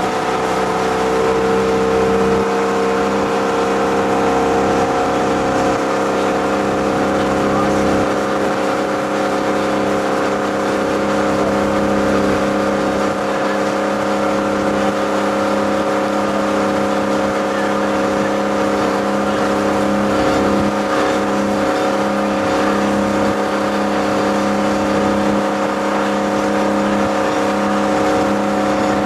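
Ski boat's engine running steadily at towing speed under load, pulling a barefoot water skier, over a steady rush of noise from the wake and the wind.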